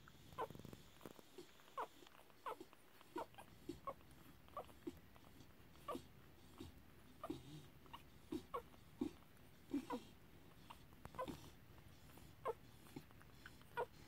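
Newborn Tibetan Terrier puppies squeaking and whimpering while they nurse: many short, high peeps at an irregular pace, about one or two a second.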